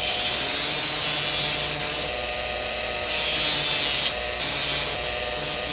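Dental laboratory handpiece spinning a sandpaper disc against the connector of a gold bridge, contouring it: a steady motor whine under a scratchy grinding hiss. The hiss drops away briefly twice as the disc eases off the metal.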